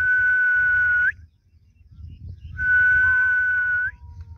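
Someone whistling two long, steady, breathy notes at the same pitch, each about a second and a half long and each ending with a short upward flick, with a pause of about a second and a half between them.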